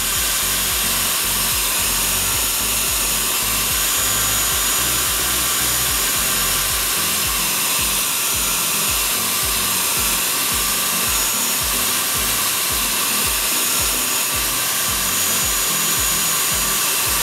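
Handheld hair dryer running steadily at close range, blowing over a paper tag to dry freshly applied paint drops.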